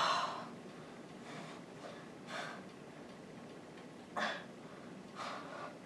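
A woman breathing hard from exertion, with four short, forceful exhales a second or two apart; the first, right at the start, is the loudest.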